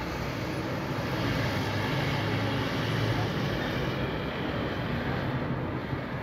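Street traffic noise, a steady rumble and hiss that swells about a second in and eases after about five seconds.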